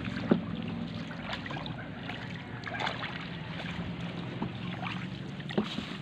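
Wooden canoe being paddled: the paddle splashing and dripping in the water, with a sharp knock about a third of a second in and a few lighter knocks later, over a steady low hum.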